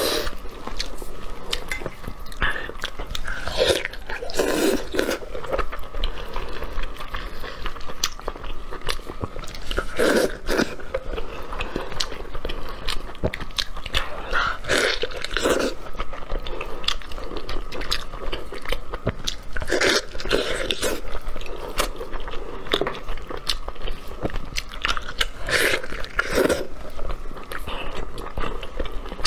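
Close-miked eating of braised sheep's head: meat being torn apart by plastic-gloved hands and wet chewing and biting, with many small clicks and squelches and louder bursts every five seconds or so.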